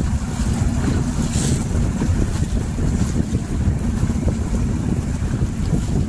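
Boat on a lake: a steady low rumble with wind buffeting the microphone.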